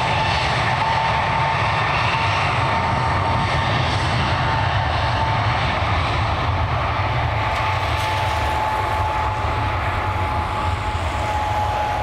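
Fixed-wing aircraft engines running loud and steady with a deep rumble and a high steady whine, easing slightly near the end.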